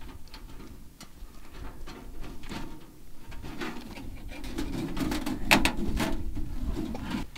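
Thin titanium stove panels being handled and fitted together: a run of light metallic clicks and taps, the sharpest about five and a half seconds in. A low hum sits underneath through the second half.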